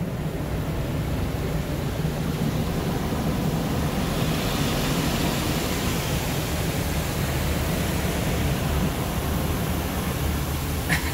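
Water from car wash spray arches pouring and spraying over a van's windshield and body, heard from inside the cab as a steady rushing hiss, a little stronger about four seconds in, over a low steady hum.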